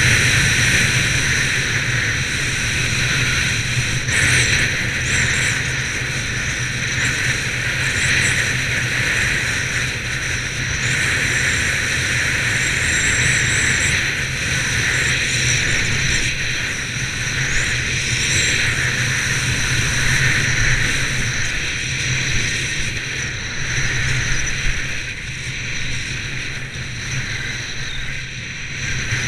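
Steady rush of wind buffeting a body-worn camera's microphone during a fast ski descent, mixed with the hiss of skis running on groomed snow.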